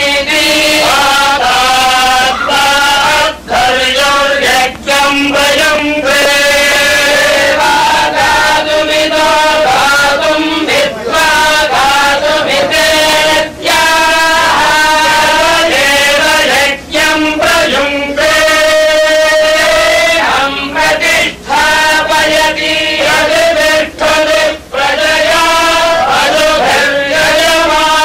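A group of voices chanting Sanskrit verses in unison, in long held notes that step between a few pitches, broken every few seconds by a brief pause for breath.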